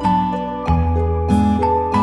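Gentle background music of plucked strings, notes changing about every half second over a bass line.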